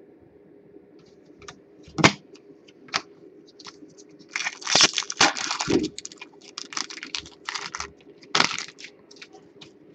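Hockey card pack wrapper being torn open and crinkled by hand. A few sharp crackles come first, then a dense run of crinkling about halfway through, and a last loud crackle near the end.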